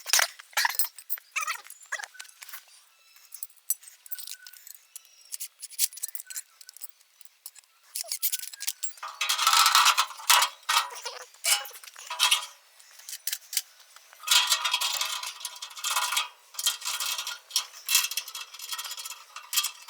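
Metal parts and tools clinking and rattling as they are handled while the rice milling machine is assembled. There are scattered sharp clinks throughout, with two longer, louder stretches of rattling about halfway through and again near the end.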